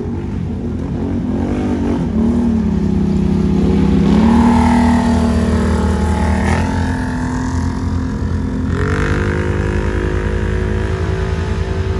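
ATV engines running and revving, the pitch rising and falling several times.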